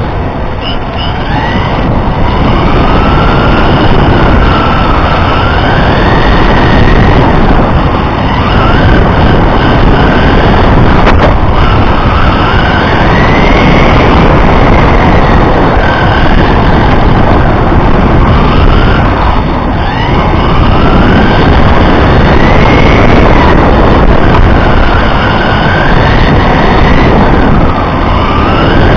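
Onboard sound of an electric RC car on asphalt: the electric motor's whine rises and falls over and over with the throttle through the corners, over loud rumbling road and vibration noise on the car-mounted microphone.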